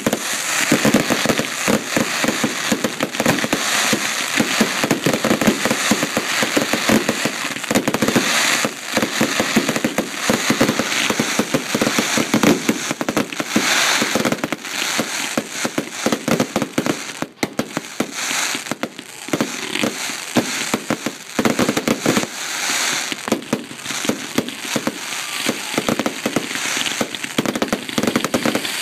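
Fireworks display finale: a continuous barrage of rapid, overlapping bangs and pops from aerial shells bursting one after another.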